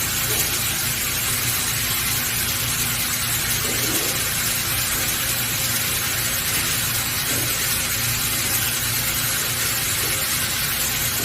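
Steady hiss with a constant low hum from robotic laser welding equipment running, unchanging throughout.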